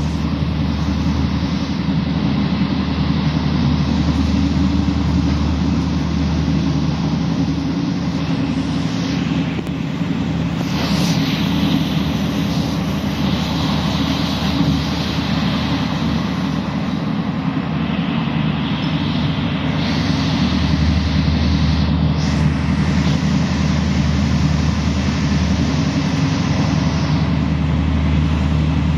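Passenger train running at speed, heard from inside the carriage: a steady low rumble and hum with a constant hiss of rolling noise. A few brief swells of louder hiss come about a third of the way in and again past the middle.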